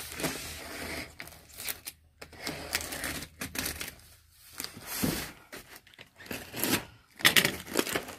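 Long cardboard shipping box being torn open by hand, its cardboard and packing tape ripping and crinkling in irregular bursts, loudest near the end.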